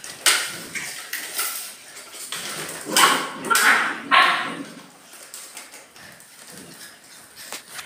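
Puppies yapping and yelping in play, a handful of short, sharp cries, loudest about three to four seconds in, among clicks and knocks of paws and a plastic hoop on a tile floor.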